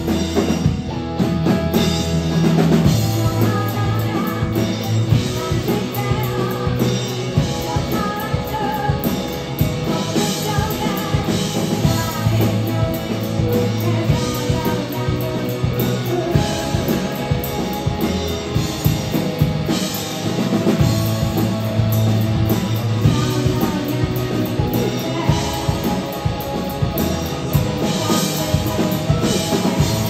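Live rock band playing with electric guitar, keyboards and a drum kit keeping a steady beat, with some singing.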